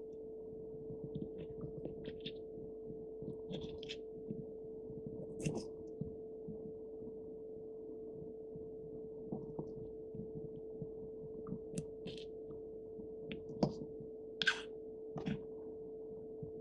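Small knife slicing through soft, peeled tomato and tapping a tiny wooden cutting board: scattered light, irregular taps and wet cuts, with a few sharper taps near the end, over a steady hum.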